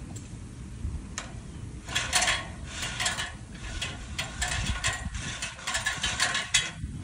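Aluminium extension ladder being raised against a palm trunk: the sections slide and the rung locks clatter and click over and over, growing denser about two seconds in.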